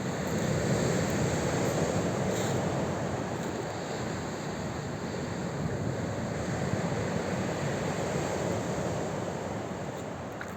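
Sea surf washing in: a steady rush of waves that swells and eases.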